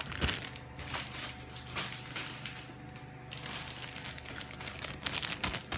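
Clear plastic bags of model-kit runners rustling and crinkling off-camera, with irregular light clicks and taps of plastic parts being handled.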